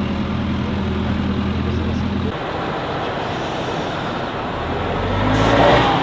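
Old heavy truck engines: one running at a steady note that breaks off abruptly about two seconds in, then truck engine noise that swells louder near the end as a truck works past.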